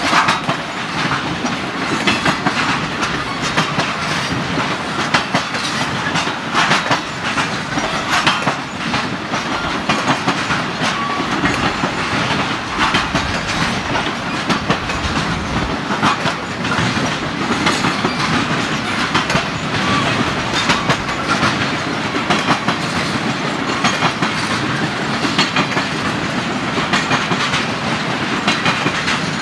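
Triple Crown RoadRailer trailers of a freight train rolling past close by. A steady rumble of wheels on rails, with frequent clickety-clack clicks as the wheels cross the rail joints.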